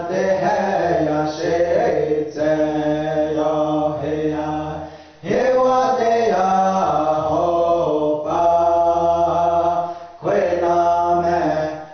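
Men's voices singing a Pueblo song in the Keres language, chanted together in long phrases, with brief breaths between phrases about five seconds in and again about ten seconds in.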